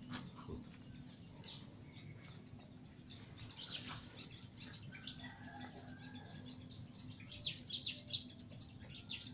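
Birds chirping: faint, short, high chirps in scattered clusters, busiest a little before halfway and again near the end, over a steady low hum.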